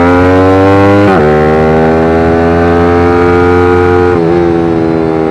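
Bored-up Yamaha R15 V3 single-cylinder engine, taken out to 180 cc, accelerating hard under load. Its pitch rises steadily, then drops sharply at each of two upshifts, one about a second in and one about four seconds in.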